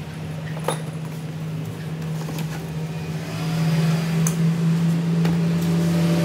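A steady low hum that grows louder toward the end, with a few light knocks as a Makita M2400B cut-off saw is lifted out of its cardboard carton and set down on a wooden table.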